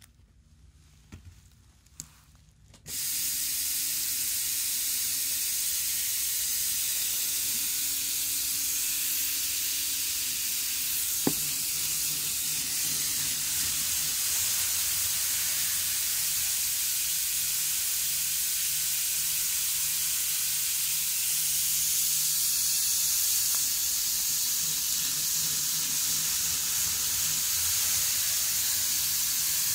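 N-gauge model train of the 783 series running around its track loop in the reverse direction, heard as a steady hiss with a faint low hum under it. It comes in suddenly about three seconds in and holds level, with a single sharp click near the middle.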